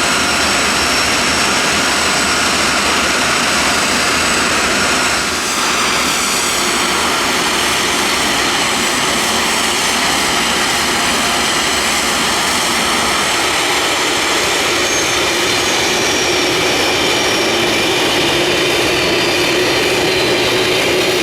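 Loud, steady jet noise from a B-1B Lancer's four General Electric F101 turbofans in flight, with high whining tones that slowly fall in pitch over the second half.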